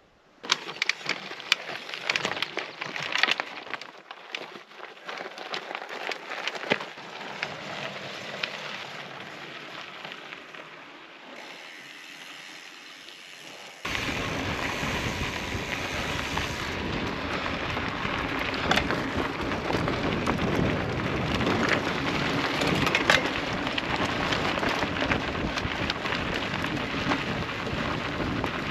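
Scattered crunches and clicks, like steps on a stony path, for the first half. About halfway the sound switches suddenly to a steady rush of wind on the microphone, with the crunch of gravel-bike tyres rolling over a loose dirt-and-stone trail.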